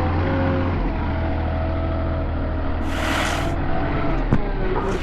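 An engine running steadily at idle, with a short hiss about three seconds in and a sharp knock just after four seconds.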